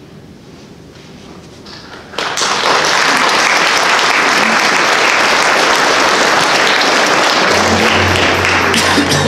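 Audience applauding, breaking out suddenly about two seconds in and holding steady, with music coming in under the applause near the end.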